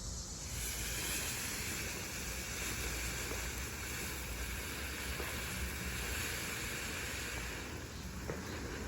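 Enigma ground firework spraying sparks with a steady hiss, which comes up about half a second in and holds without bangs.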